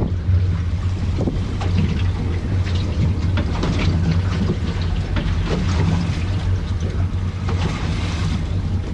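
Boat engine running with a steady low hum under a noisy wash of wind and water, with scattered small knocks through it.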